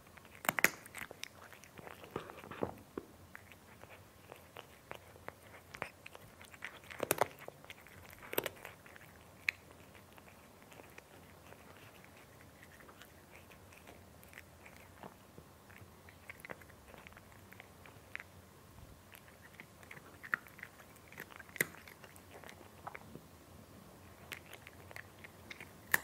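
A cat eating crunchy food: irregular crunches and chewing clicks in small clusters with quieter gaps between, the loudest near the start, around seven to eight seconds in, and at the very end.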